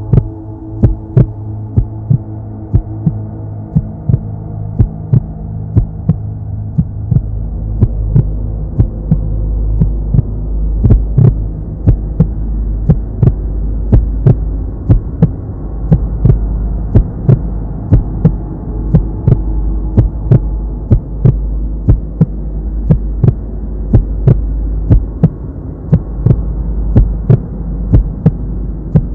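Clock-like ticking, about two sharp ticks a second, over a low sustained drone that swells from about seven seconds in.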